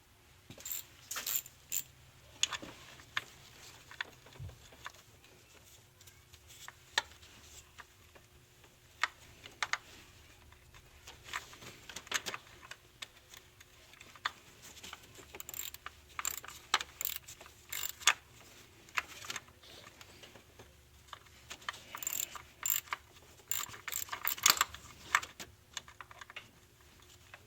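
Hand ratchet clicking in short irregular runs as a solenoid valve's mounting screw is tightened, with small metal clinks of tool on engine parts.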